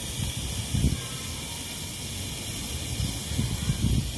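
Steady hiss of compressed gas being bled slowly out through a refrigeration manifold gauge set and hoses during an air-conditioner compressor compression test, with a few low thumps about a second in and again near the end.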